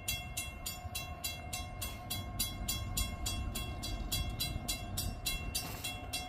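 Railroad grade-crossing warning bell ringing in quick, even strikes, a little over four a second, over a low rumble. It is the signal that the crossing has been activated for an approaching train.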